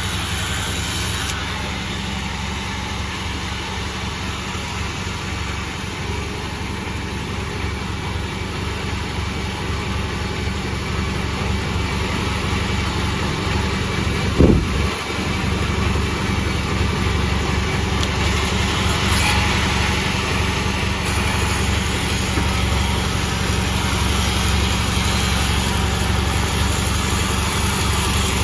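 Sawmill machine running steadily, its engine droning, with one brief sharp sound about halfway through.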